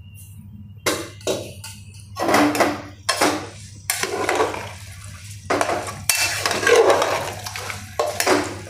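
Steel spoon and perforated ladle scraping and knocking against the inside of an aluminium pressure cooker while stirring rice and vegetables in water: a run of irregular clattering strokes starting about a second in, over a low steady hum.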